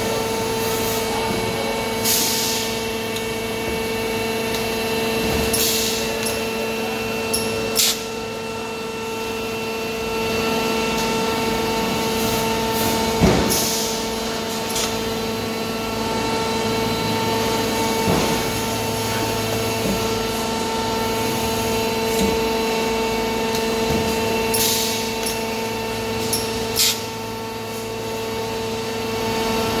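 Concrete block off-bearing and cubing machine running: a steady machine hum with a constant tone, broken by several short hisses and a few clanks as the gripper picks up and stacks the blocks, the loudest clank about halfway through.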